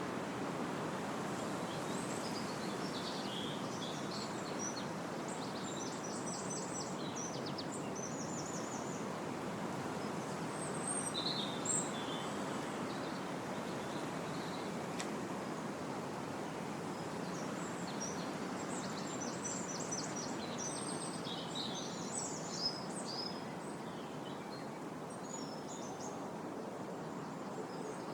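Wind rushing steadily through trees at the edge of a copse, with several small birds singing high trills and chirps over it, busiest in two spells through the middle.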